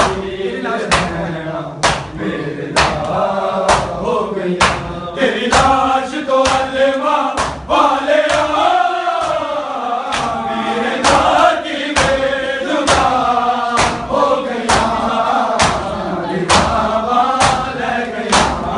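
A group of men chanting a noha together, with the sharp slaps of hands beating bare chests (matam) in time, about one beat a second.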